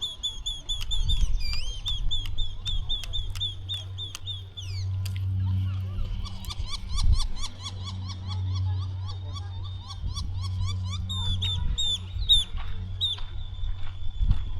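Birds calling in rapid series of short, repeated high chirps, with a lower repeated call joining in the middle, over a steady low hum.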